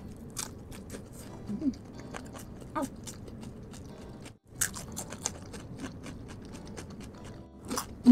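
Close-miked chewing of spicy fried chicken: a steady run of short, crisp crunches and mouth sounds, with the loudest crunch near the end and a brief dropout a little past the middle.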